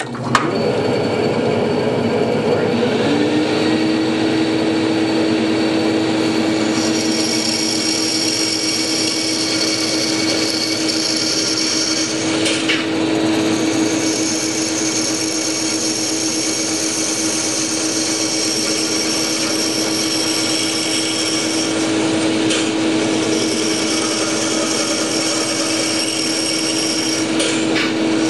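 Small bandsaw switched on, its motor coming up to speed over the first few seconds and then running steadily. From several seconds in, its blade is cutting through a thick maple block, adding a high whine over the hum.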